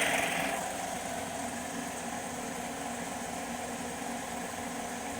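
CNC mini lathe running: a louder hiss drops away about half a second in, leaving the steady hum of the spindle motor.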